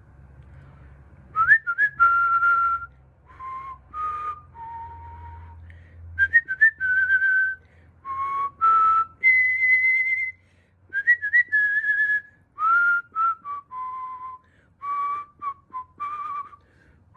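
A person whistling a melody from a film, in short phrases of held and sliding notes with breath audible around them and brief pauses between phrases.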